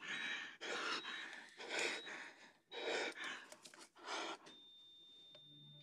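A man's laboured gasping for breath, about five heavy gasps, which stop after about four and a half seconds. A steady high electronic tone then sets in: a heart monitor flatlining as the patient dies.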